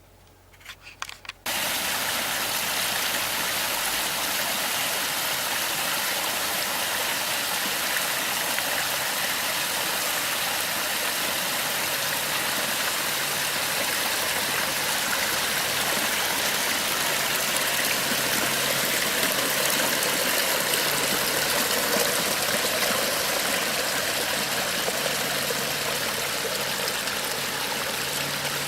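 Water running down a pondless waterfall's rock cascades, a steady even rush and splash that starts suddenly about a second and a half in. A faint low hum joins under it about halfway through.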